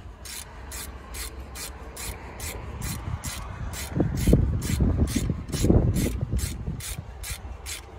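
Hand ratchet with a 10 mm hex bit clicking in a steady series as it is worked back and forth to loosen a bolt on a turbocharger. Heavier scraping and handling of metal against the engine comes about four seconds in and again near six seconds.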